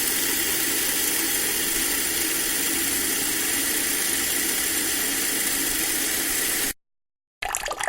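Steady rushing flow of water, an even hiss that holds at one level and then cuts off suddenly near the end. After a brief silence, another, more uneven water flow begins.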